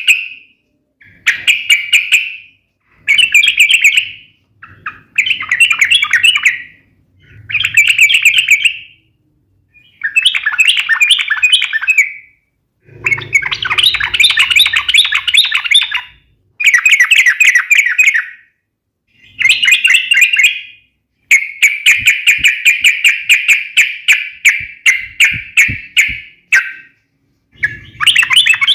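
Yellow-vented bulbul (trucukan) singing loud, rapid chattering phrases of one to three seconds each with short gaps between them. This is the sharp fighting song ('suara tajam tarung') used to make other trucukan answer.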